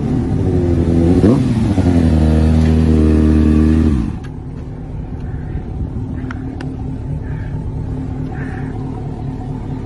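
Sportbike engine revving, its pitch rising and falling, then dropping suddenly at about four seconds to a quieter, steady idle.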